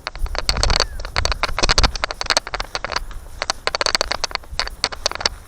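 Crunching footsteps, a quick run of sharp crackling steps every second or so.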